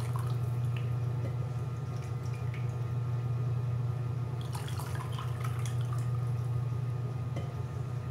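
Vegetable broth poured from a ladle through a plastic sieve into a cup, trickling and dripping, with a cluster of splashes and ladle clinks about five seconds in. A steady low hum runs underneath.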